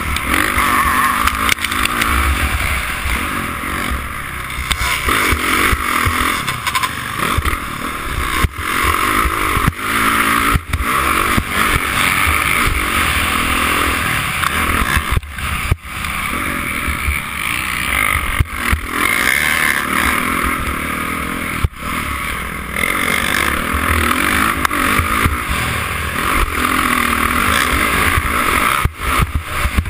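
Honda CRF450 motocross bike's single-cylinder four-stroke engine under hard riding, its note rising and falling with the throttle, mixed with wind rush over a helmet camera. Short sharp drops in the sound come every few seconds as the throttle is chopped.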